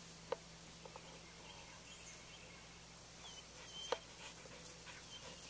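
Quiet field ambience with a few faint bird chirps and two sharp clicks, the louder one near the end.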